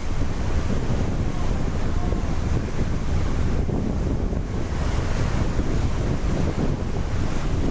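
Wind buffeting the microphone aboard a moving tour boat, with a steady rush of water underneath.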